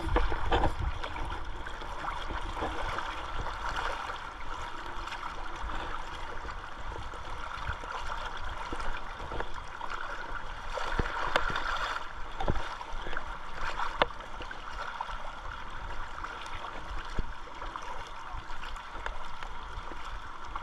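River current rushing and gurgling past, with a few sharp clicks scattered through it.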